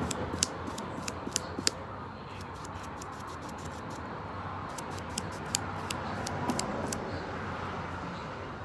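Sharp, irregular clicks and light taps from a paintbrush working against a canvas board, bunched in the first two seconds and again about five to seven seconds in, over a steady low background hum.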